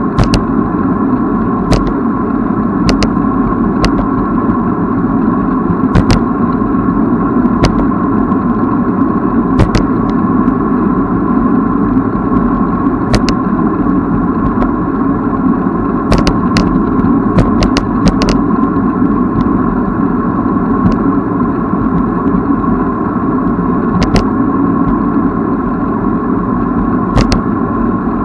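Steady wind and rolling noise of a moving bicycle on the camera's microphone, with sharp clicks and rattles here and there, several close together about two-thirds of the way through.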